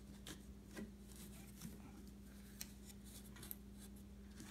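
Faint rustles and a few light clicks of a cardboard box and plush toys being handled, over a steady low hum.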